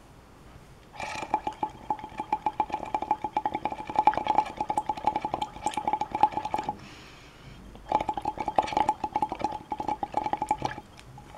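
Carbon dioxide bubbled through a thin tube into a test tube of indicator solution. It makes a rapid, buzzy bubbling in two long bursts, with a short pause between them.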